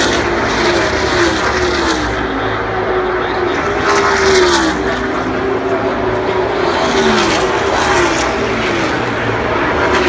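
NASCAR Cup Series stock cars' V8 engines at full throttle passing one after another, each engine note dropping in pitch as it goes by, over a continuous drone of the rest of the field.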